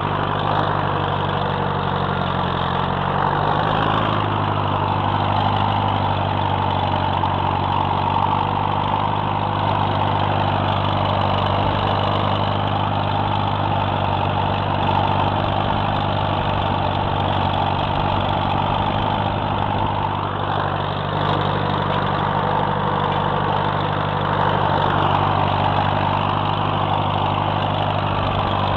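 Farmall Super MTA tractor's four-cylinder engine running steadily under load, pulling a chisel plow.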